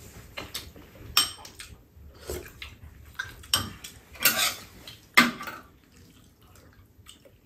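Metal spoons and chopsticks clinking against bowls as two people eat, in scattered sharp clicks, the loudest about five seconds in. The clinking dies down for the last couple of seconds.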